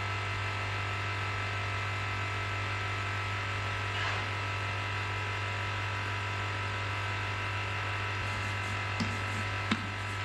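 Steady electric hum with a constant low drone and a faint whine over it. A few light clicks come near the end.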